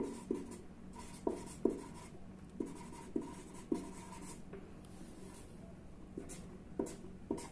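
Marker pen writing on paper: a series of short strokes and taps of the felt tip, several close together in the first four seconds and two more near the end.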